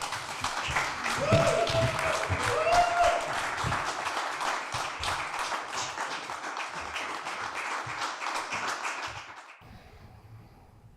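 Audience applauding after a spoken-word performance, dense clapping that dies away about nine and a half seconds in. A voice calls out briefly a second in and again at about three seconds.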